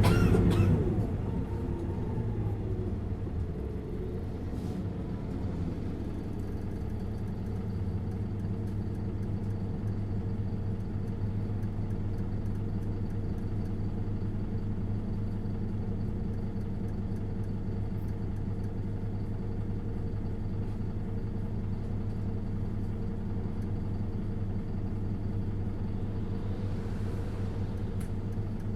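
Isuzu Erga LV290N1 bus's four-cylinder diesel engine heard from inside the bus: its note drops in the first second, then it runs at a steady speed with an even hum.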